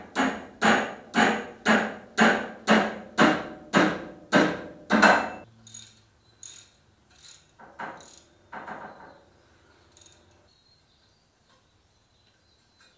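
Ratchet wrench worked on a bolt of the engine cradle mount: a quick, even run of ratcheting strokes, about two and a half a second, then a few slower, fainter strokes that stop about ten seconds in.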